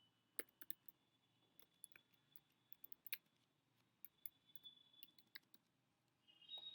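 Faint, irregular computer keyboard clicks, a few keystrokes at a time, over near silence.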